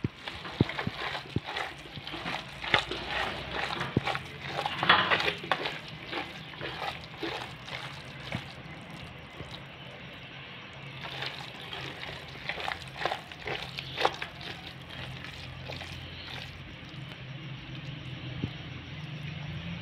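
A hand squeezing and mixing wet, crumbly chicken feed mash in a stainless steel bowl: irregular wet squelches and crackles.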